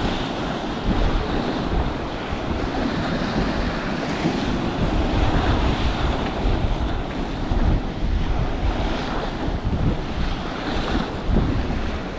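Sea waves breaking and washing over rocks in surging rushes, with wind buffeting the microphone.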